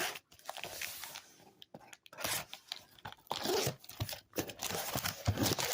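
A cardboard shipping box being torn open by hand, with tearing and crunching in irregular bursts.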